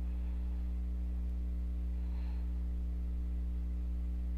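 Steady electrical mains hum with its evenly spaced overtones, with a faint brief sound about two seconds in.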